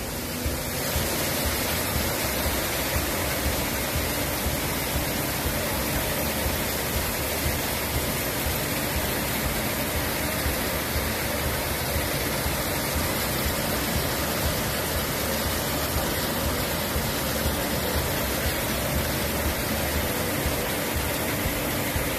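Hail and heavy rain falling hard: a dense, steady hiss of pelting, dotted with many small sharp taps.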